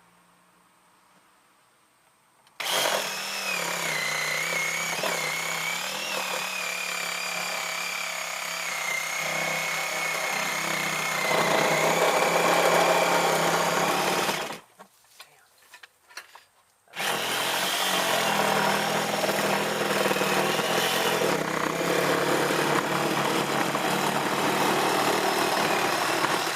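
Electric power saw cutting, its motor whine wavering with the load. It starts about two and a half seconds in, runs for about twelve seconds, stops briefly, then starts again and keeps cutting.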